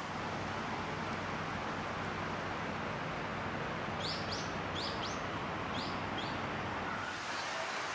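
A bird gives a quick run of about six short, high chirps about halfway through, over a steady outdoor wash of noise with a low hum that fades near the end.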